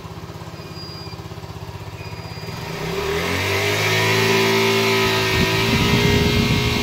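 Motorcycle engine idling with an even pulse, then revved up about two and a half seconds in and held at higher revs, raising the charging voltage that feeds a power inverter.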